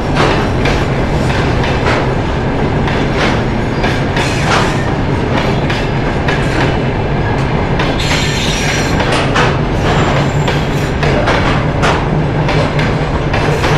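Freight train hauled by a TEM2 diesel shunting locomotive rolling past with a steady low rumble, its wheels clicking over rail joints. A high wheel squeal comes in about eight seconds in.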